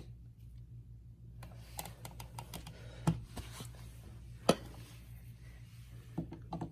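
Screwdriver tightening the screw of a non-breakable outlet wall plate: faint scraping ticks, with two sharper clicks about three and four and a half seconds in.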